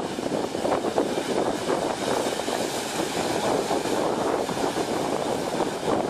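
Heavy ocean surf breaking over and pouring across a rock shelf: a steady, loud rush of white water, with wind noise on the microphone.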